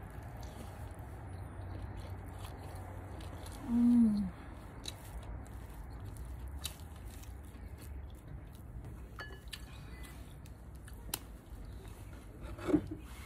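A person chewing a mouthful of rice and meat eaten by hand, with small wet clicks and smacks. About four seconds in comes a short, loud, falling 'mmm' hum, and another brief vocal sound near the end, over a steady low background hum.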